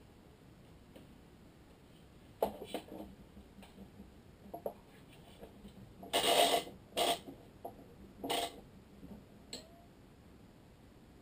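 Handling noises at a badminton racket stringing machine. Scattered clicks and knocks start about two seconds in. Then come three short swishes of string being drawn and handled at the tensioner, between about six and eight and a half seconds.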